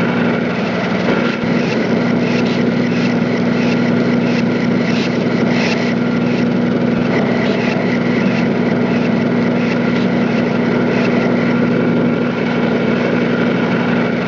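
A motor running steadily: a constant, loud, even hum with a whir above it that does not change in pitch.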